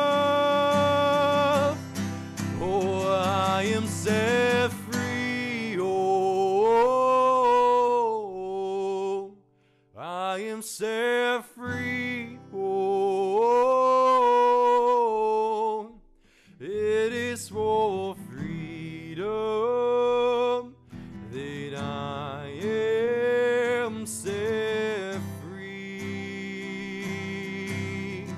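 A man singing a worship song with long held and sliding notes, accompanied by strummed acoustic guitar. The sound drops out briefly about nine seconds in and again near sixteen seconds.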